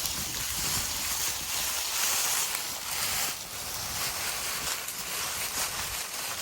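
Wind, with a steady rushing hiss and low buffeting rumble on the microphone.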